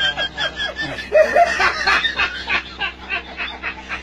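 A man laughing hard, a fast, unbroken run of repeated laughs.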